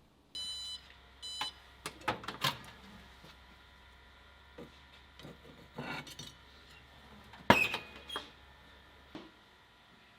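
An electronic appliance gives two short beeps and starts a low, steady hum. Clicks and knocks sound over the hum, the sharpest about seven and a half seconds in, and the hum stops about nine seconds in.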